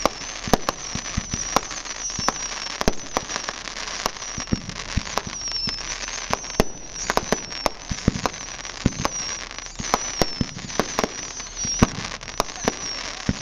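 Aerial fireworks display: a rapid, irregular string of bangs and pops from bursting shells, with continuous crackling between them.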